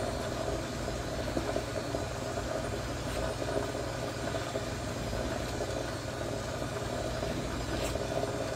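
Lapidary cabbing machine running at turned-down speed with a steady motor hum, as a cabochon on a dop stick is held against its spinning wet leather polishing wheel charged with oxide polish.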